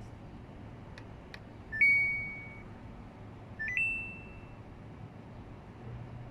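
Samsung dishwasher control panel: two faint button clicks, then two short electronic chimes about two seconds apart, each stepping quickly up in pitch to a held tone. A low steady hum starts near the end as the machine begins to run.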